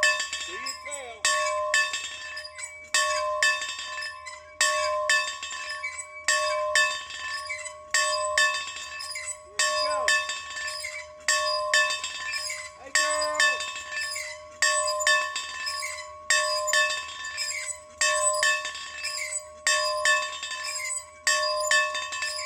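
A bell being rung over and over at a steady pace, about a stroke every second, often in quick pairs, each stroke ringing on into the next.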